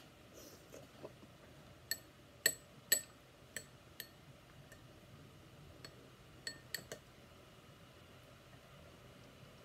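Spoon clinking against a small glass bowl while scooping food: a run of short ringing clinks about two to four seconds in, the loudest near the middle of that run, then a quicker cluster of three a few seconds later.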